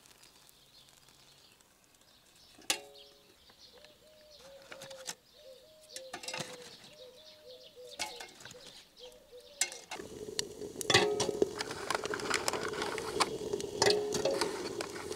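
Clinks and clatter of kindling and pine cones dropped down the metal chimney of a wood-fired samovar, with dense crackling as the fuel inside catches. A bird calls again and again in short phrases through the first part.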